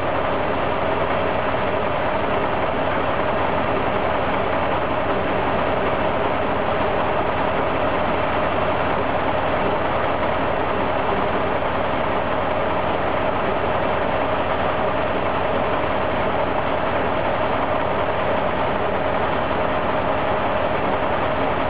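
The diesel engine of an old Brossel-built railcar idling steadily while the railcar stands still.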